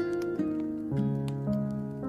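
Slow, gentle piano music, a new note or chord about every half second, with the small sharp crackles of a burning wood fire mixed in.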